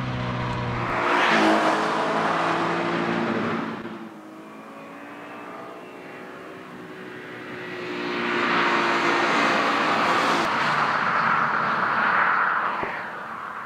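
A Subaru BRZ's flat-four boxer engine and tyres as the car is driven through mountain bends. The sound swells loud twice as the car comes close, about a second in and again from about eight seconds, and dies down in between.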